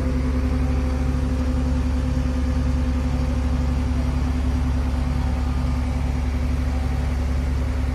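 Heavy diesel engine of a mobile crane running steadily under load while it lifts a steel girder span, a constant low drone with a pulse about twice a second.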